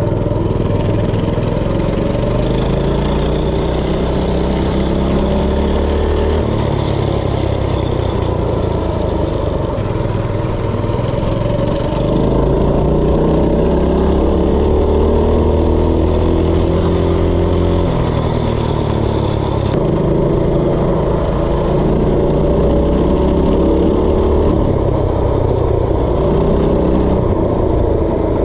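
A DuroMax 208cc single-cylinder four-stroke engine drives a minibike through a centrifugal clutch while it is ridden. The engine note climbs and drops several times as the throttle is opened and eased off.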